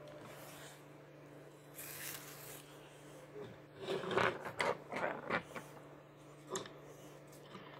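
Toy packaging being handled and opened by hand: a brief rustle about two seconds in, then a quick run of clicks and knocks from about four seconds, and one more click a little later, over a steady low hum.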